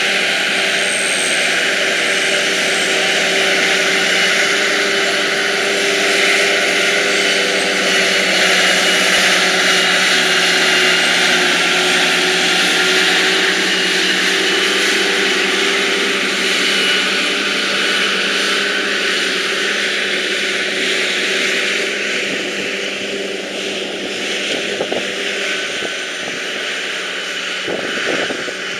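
Heavy farm machinery at silage harvesting, its diesel engines running steadily and loud under load. The sound eases slightly in the last few seconds.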